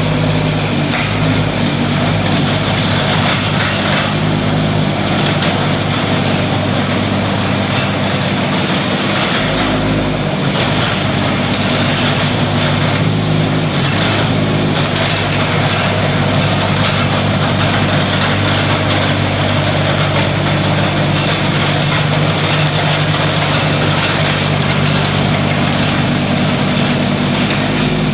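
Kubota K008-3 mini excavator's diesel engine running steadily while the machine works its hydraulics, the engine note shifting a few times as the hydraulics take load.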